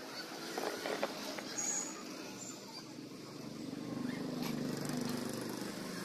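Pliers or wire cutters clicking against galvanized welded wire mesh, a few sharp clicks in the first two seconds. A low steady hum rises in the background about halfway through.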